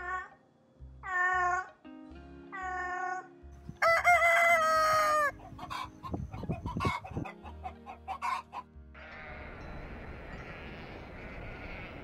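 A domestic cat meows a few times, then a rooster crows once, loudly, and chickens cluck. About nine seconds in, a steady rushing noise takes over. Soft background music with a steady low beat runs underneath.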